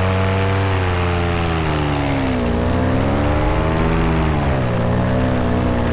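Polini Thor 202 single-cylinder two-stroke paramotor engine and propeller running in flight, its engine note dipping and rising a few times as its speed changes.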